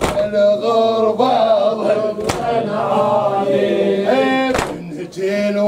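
Latmiya: men's voices chanting a Shia mourning lament, with the congregation striking their chests in unison three times, a little over two seconds apart.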